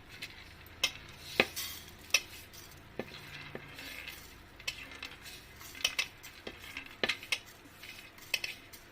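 Metal spoon clinking and scraping in a kadai while sesame seeds are added. Scattered sharp clicks and knocks sound over a faint hiss.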